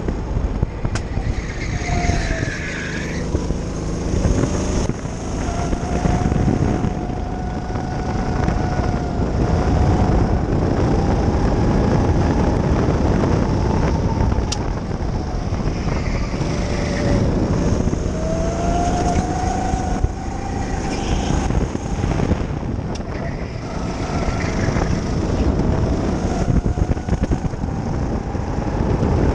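Go-kart engine running hard, heard from on board the kart, its note climbing as it accelerates and dropping away as it slows for corners, several times over.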